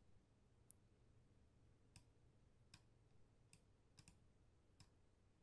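Faint computer mouse clicks, about six of them at uneven intervals with a quick double click about four seconds in, over near silence.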